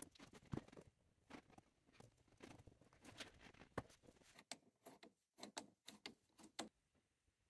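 Faint handling noises of a rubber air hose being worked onto intake pipework by hand: rubbing and rustling with a string of light clicks and knocks, the last ones close together, stopping shortly before the end.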